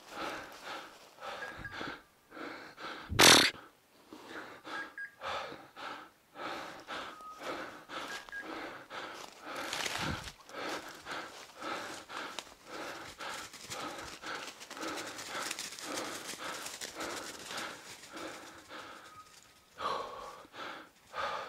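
Footsteps crunching through dry fallen oak leaves, with twigs and branches brushing and scraping as someone pushes through thick brush. One loud, sharp crack or scrape about three seconds in.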